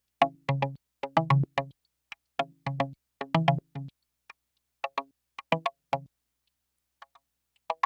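Mutable Instruments Rings resonator playing a sequenced melody of short plucked notes through the Xaoc Devices Zagrzeb filter's high-pass output, with CV on the filter's frequency inputs. The notes come quickly at first, then thin out in the second half into fewer, quieter notes, some with only their upper overtones left.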